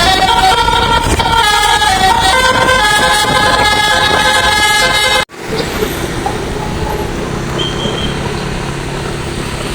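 Bus telolet musical air horn playing a stepping multi-note tune for about five seconds, cut off suddenly. Then a quieter steady low rumble.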